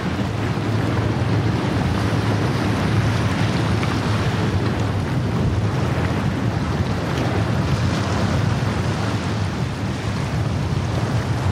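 Motor yacht running at speed through choppy water: a steady low engine drone under the rushing of its wake, spray and surf, with wind on the microphone.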